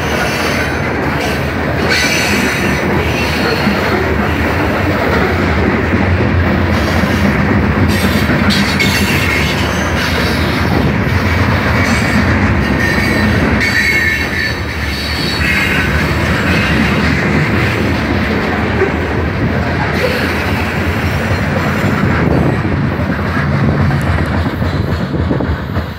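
Covered hopper cars of a Norfolk Southern freight train rolling past close by: a steady rumble of steel wheels on rail, with brief high-pitched wheel squeals now and then.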